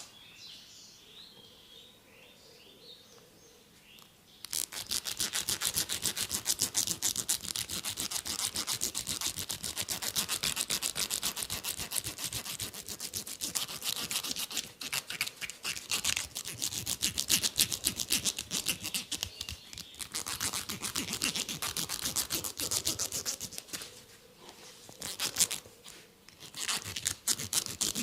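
Rapid scratching of oiled hair and scalp close to the microphone: a dense rasping of many quick strokes that starts about four seconds in and breaks off briefly a few times. Faint bird chirps before it starts.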